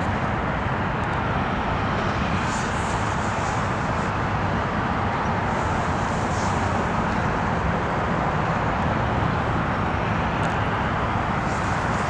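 Steady low rumble of distant diesel freight locomotives under way, blended with road traffic noise.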